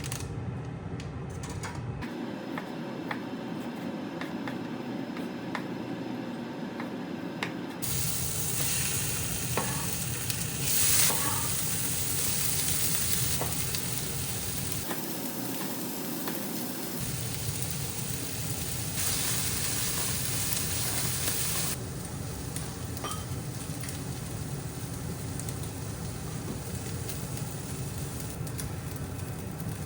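Food sizzling as it fries in a pan while being stirred, the sound changing abruptly several times from one short shot to the next.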